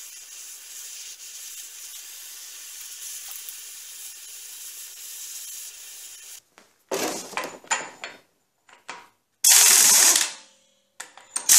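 Handheld gas torch hissing steadily as it heats a seized axle nut; the hiss cuts off about six seconds in. Then come short clanks of handling and a loud, brief burst from an air impact wrench on the 36 mm axle nut near the end.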